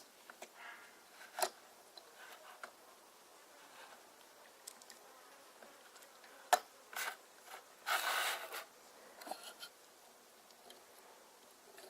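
Plastic building bricks being handled and pressed together: scattered sharp clicks, with a short scraping rustle about eight seconds in.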